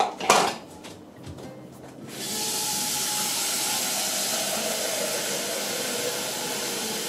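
Water running from a Cleansui purifier tap into a saucepan, a steady rush that starts about two seconds in. A short, louder sound comes just before it, near the start.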